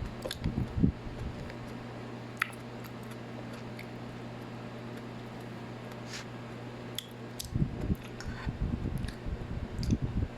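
Close-up chewing and mouth sounds of someone eating, in two bouts near the start and over the last few seconds, with scattered light clicks and clinks in between. A steady fan hum runs underneath.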